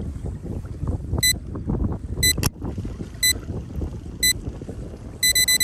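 Wind buffeting the microphone on a small boat at sea, a low rumbling noise. Over it an electronic device gives a short high beep about once a second, four times, then beeps rapidly near the end. One sharp click falls in the middle.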